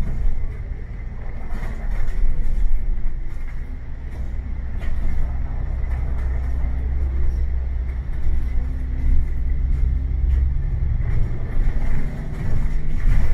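A bus running with a steady low engine rumble and road noise, with a few brief knocks or rattles in the first five seconds.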